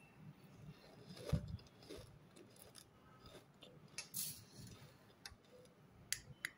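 Steel spoon moving through a bowl of puffed-rice chiwda: scattered light clicks and taps of the spoon on the bowl and the crisp puffed rice, with a soft knock about a second in.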